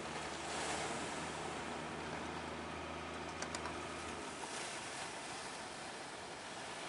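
Fishing boat engine running steadily with a low hum that fades out about four seconds in, over a constant wash of waves and surf.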